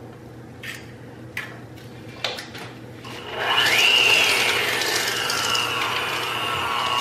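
Electric hand mixer beating thick cookie dough in a stainless steel bowl. A few light taps come first, then about three seconds in the motor starts with a quickly rising whine and runs steadily.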